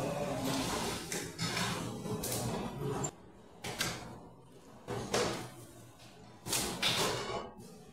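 Restaurant kitchen work sounds: several short, sharp noisy bursts from equipment and utensils being handled, the loudest near the end.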